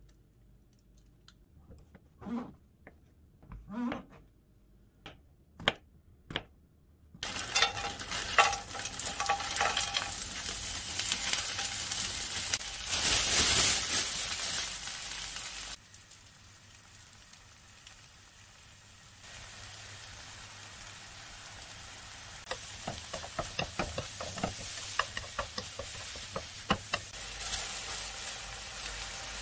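Sliced green onion and minced garlic frying in oil in a nonstick frying pan. After a few soft handling sounds, a steady sizzle starts about seven seconds in and is loudest around the middle. It then settles lower, with light clicks near the end.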